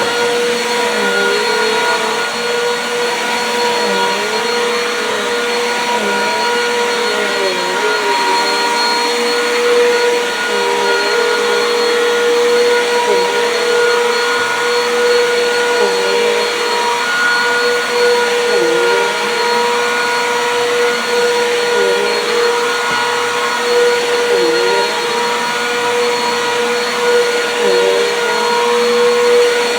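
Bissell PowerForce Compact Turbo vacuum cleaner running on carpet: a steady motor whine over airflow noise, with the lower pitch dipping briefly every second or two.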